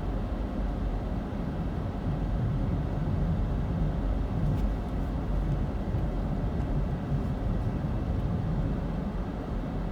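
Strong wind heard as a steady low rumble, a little louder in the middle.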